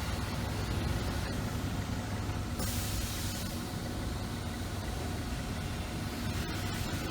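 Heavy vehicle's engine running low and steady, with a short hiss of air from its air brakes about two and a half seconds in.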